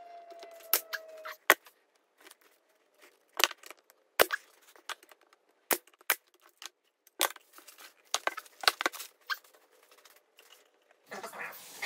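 Brad nailer firing brads into the glued plywood panels of a box: about ten sharp shots at uneven intervals.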